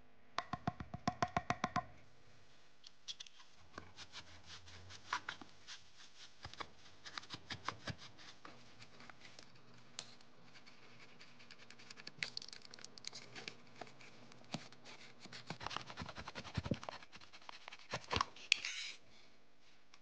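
A utility knife blade scraping and cutting around a hardened black glue casting on a wooden board, in irregular scratchy strokes that get busier and louder near the end. It opens with a quick, even run of about a dozen ringing clicks, like the knife's snap-off blade being ratcheted out.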